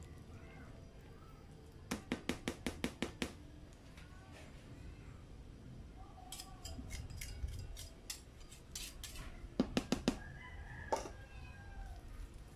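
Thick corn muffin batter being stirred with a spoon and then a wire whisk in a plastic mixing bowl, with quick runs of clicks as the utensil knocks against the bowl.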